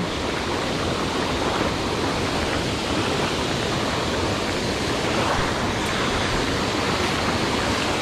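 Creek water rushing steadily over a shallow rocky riffle, an even rush of water.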